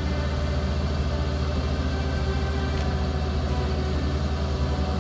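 Kubota DC-68G combine harvester's diesel engine running steadily under load with a fast, even low throb while its unloading auger runs, discharging paddy grain into a trailer.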